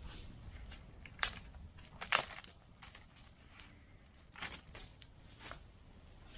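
Bonfire crackling over a low rumble, with two sharp pops about one and two seconds in and fainter, irregular crackles between.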